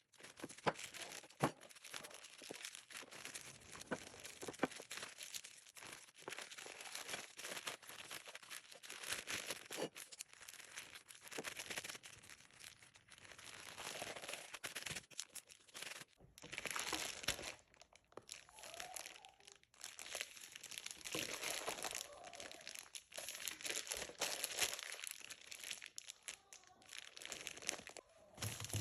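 Plastic packaging crinkling and rustling as it is handled, on and off, with many small clicks and knocks.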